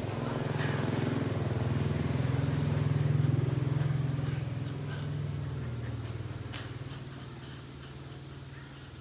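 A low engine hum, likely a passing vehicle, swelling to its loudest about three seconds in and then fading away.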